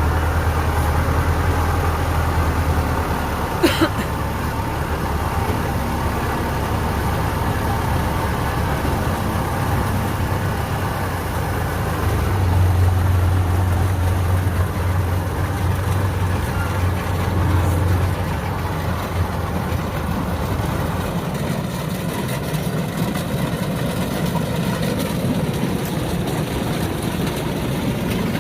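Kubota DC-105X combine harvester's diesel engine and threshing machinery running steadily while harvesting rice in floodwater. The deep engine hum swells twice, briefly at the start and again in the middle, and eases off in the last third, with one sharp click about four seconds in.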